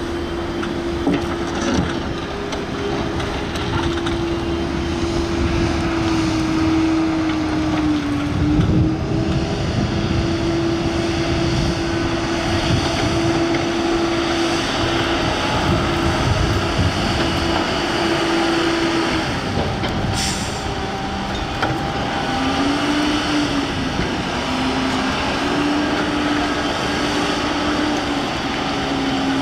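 Volvo EC210B excavator's diesel engine running steadily under working load, its tone dipping in pitch briefly a few times. A single sharp knock comes about two-thirds of the way through.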